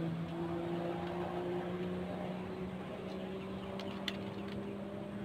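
Steady engine hum, its pitch slowly rising, with a few sharp clicks about four seconds in.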